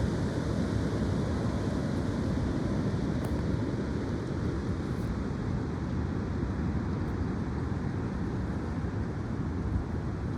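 Strong wind blowing and buffeting the microphone: a steady low rumble of noise with no clear breaks.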